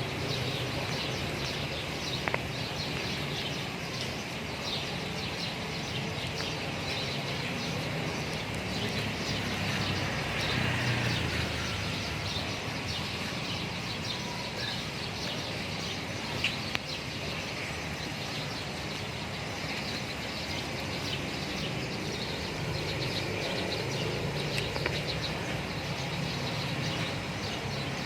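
Outdoor ambience: small birds chirping over a steady background noise, with a louder swell of noise about ten seconds in.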